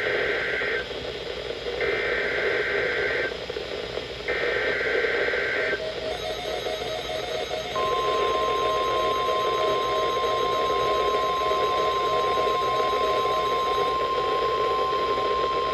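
NOAA Weather Radio emergency alert heard through a weather radio receiver's speaker with hiss. First come SAME header data bursts: the end of one and then two more, each a screechy warble of digital tones about a second and a half long, about a second apart. About two seconds after the last burst, the steady 1050 Hz warning alarm tone starts and holds.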